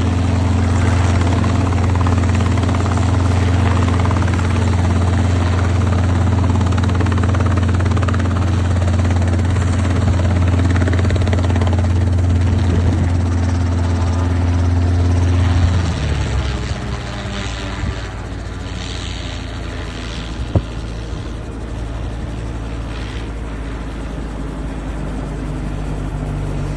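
Helicopter engine and rotor running steadily and loud. About sixteen seconds in the pitch drops and the sound falls quieter, then runs on steadily at the lower level.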